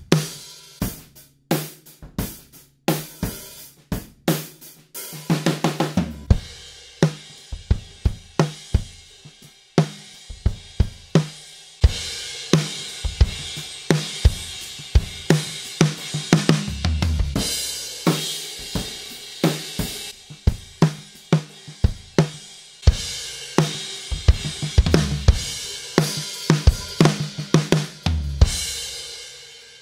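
Drum kit played and heard as a multi-miked, processed and mixed recording: kick drum, snare, hi-hat and cymbals. Sparse hits at first, then a busier groove with steady cymbal wash, ending with the kit ringing out.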